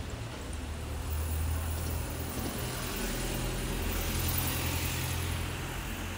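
Street traffic: a low engine drone from road vehicles, with a hiss of passing tyres swelling in the middle.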